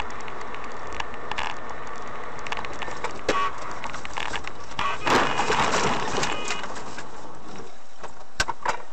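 Steady vehicle noise with scattered clicks, swelling briefly about five seconds in, and two sharp clicks near the end.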